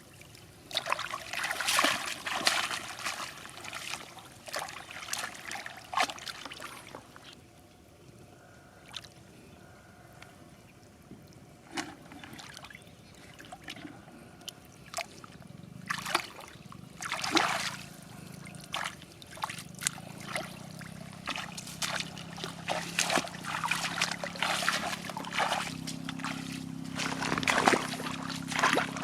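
Water splashing and trickling in irregular bursts. A low steady hum comes in about halfway through and rises a step near the end.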